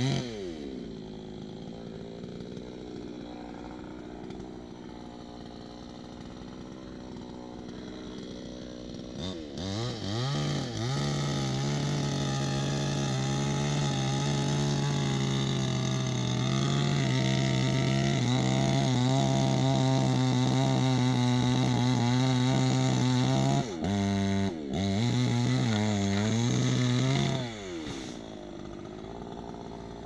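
Two-stroke chainsaw idling, then revving up about nine seconds in and running steadily at high speed for over ten seconds. It drops off briefly, revs again, and settles back to idle near the end.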